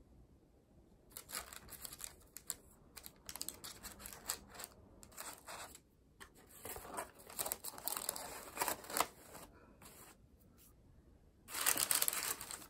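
Baking-paper liner crinkling and rustling in irregular bursts as madeleines are pushed into a lined takeaway box, with a louder, denser crinkle near the end as a fresh sheet of paper is pressed into an empty box.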